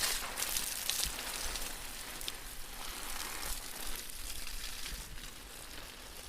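A steady crackling hiss with a few faint clicks, slowly fading away.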